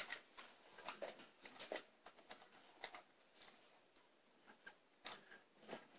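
Faint, scattered light clicks and taps of plastic toy bricks being handled, with a sharper click at the start and a couple more about five seconds in.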